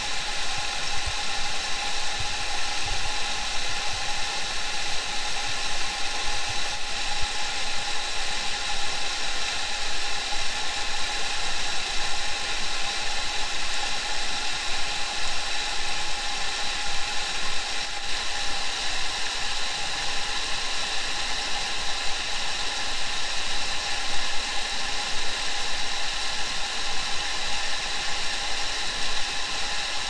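Steady rushing of a swollen, muddy river pouring over rocks, under a constant high whine that does not change.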